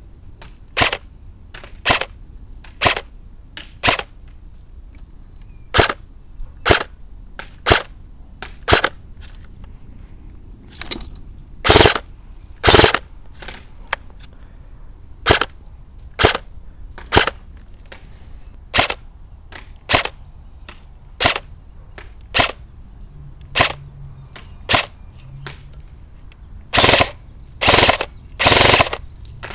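JLS Beretta RX-4 Storm electric airsoft gun firing single shots, about twenty sharp reports mostly about a second apart. A few of the reports, around the middle and near the end, are longer and louder.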